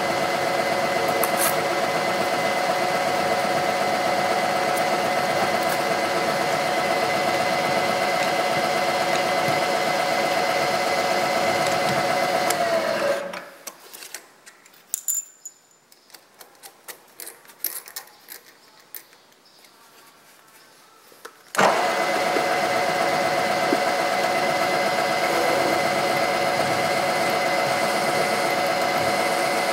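Milling machine spindle running at a steady speed with a drill bit in it, a constant whine over the machine noise. A little before halfway it winds down and stops, leaving a quiet stretch with small clicks and taps, then it runs again in the last quarter while the drill cuts into the steel adapter.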